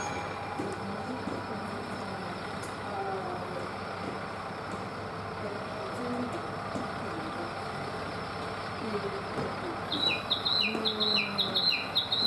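Tsugaru Railway 'Hashire Melos' diesel railcar standing at the platform with its engine idling, a steady running noise. About ten seconds in, a quick two-note high chirping starts, a high note then a slightly lower one, repeating about three times a second.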